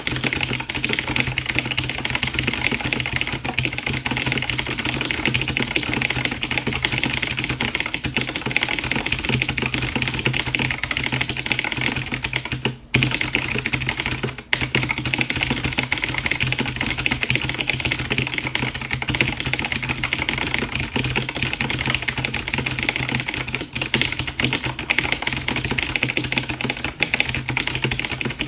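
Fast typing on a mechanical keyboard with clicky Outemu Blue switches: a dense, unbroken clatter of crisp key clicks that stops twice, briefly, about halfway through, over a steady low hum.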